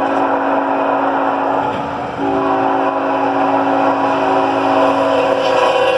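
Freight locomotive's air horn sounding for a grade crossing, over the rumble of the approaching train. One blast of about two seconds, a brief break, then a long blast held through the rest.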